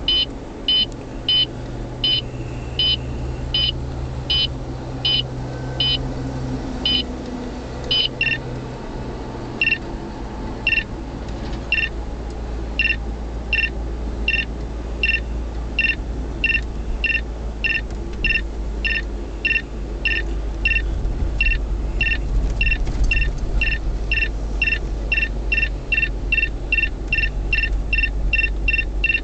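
Beltronics RX65 radar detector sounding its Ka-band alert: a train of short, high beeps whose rate picks up as the radar signal grows stronger, reaching about three beeps a second near the end. The tone of the beeps changes about eight seconds in. Under it runs the steady low hum of the car driving.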